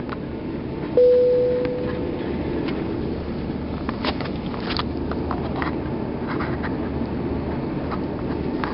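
Steady cabin noise inside an Airbus A340-600 with Rolls-Royce Trent engines while it taxis. About a second in, a single cabin chime sounds and fades over about a second. A few light knocks come around the middle.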